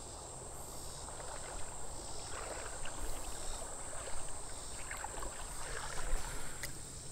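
Feet wading through shallow creek water, a string of irregular sloshes and splashes. A steady, high-pitched cricket chorus runs behind.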